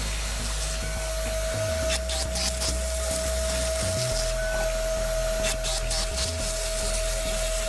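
CNC machine running: a steady high whine throughout over a low hum that shifts in level every second or so as the machine moves, with short hissy streaks on top.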